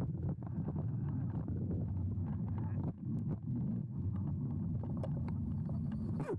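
Low wind rumble on the microphone with road noise from an electric mini-bike being ridden, and scattered light clicks.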